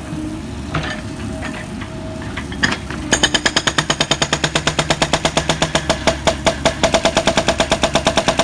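Jackhammer breaking up masonry: a low machine rumble, then about three seconds in the jackhammer starts a rapid, even hammering of roughly seven blows a second.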